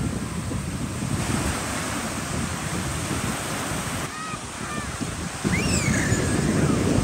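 Small surf washing and breaking on a sandy beach, with wind buffeting the microphone. A few short high-pitched calls come through about four seconds in, and a longer sweeping call comes about six seconds in.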